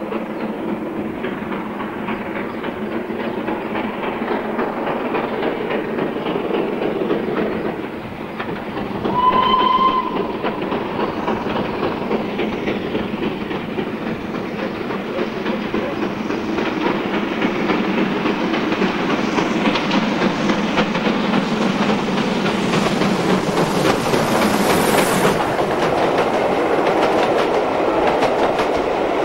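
Steam locomotive approaching under steam, its exhaust growing louder, with one short whistle blast about ten seconds in. It then passes close with its train of coaches, the wheels clicking rapidly over the rail joints.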